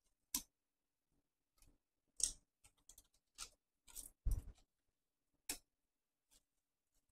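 Scattered short clicks and scrapes of wire-stemmed foam roses being handled and pushed into a bouquet, with a soft thud about four seconds in.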